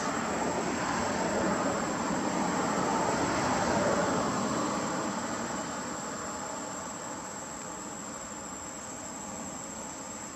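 Outdoor forest ambience: a thin, steady, high insect drone over a broad rushing noise that swells over the first few seconds and then eases off.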